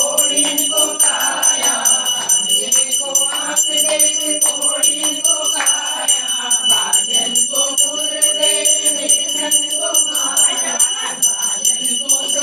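Small brass puja hand bell rung rapidly and continuously, its steady high ringing tone kept up by several strokes a second, over women's voices in the room.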